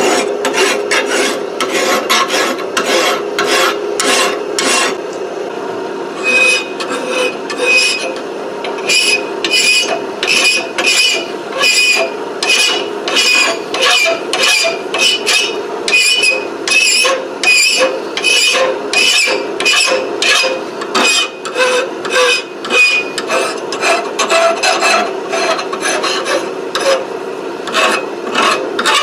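Hand file scraping back and forth over a 4140 tool-steel round punch, about two strokes a second with a short pause about five seconds in, smoothing off the high ridges left from forging so the punch drives with less friction.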